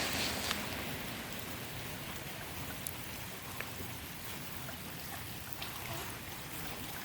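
Rain falling steadily with scattered drop ticks, over rainwater runoff streaming along the ground.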